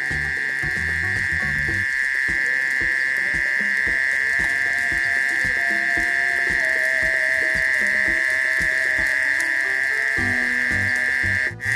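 A steady, high-pitched evening insect chorus drones on without a break, over soft background music. Everything drops out briefly near the end.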